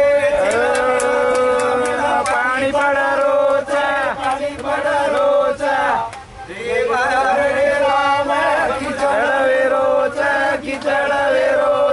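Group of men singing together in a chanting style, in long held notes, with a brief break just past the middle. A run of hand claps sounds in the first couple of seconds.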